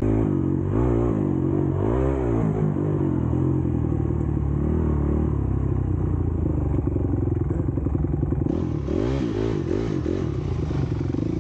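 Dirt bike engine running hard while being ridden, its pitch rising and falling over and over as the throttle is opened and closed.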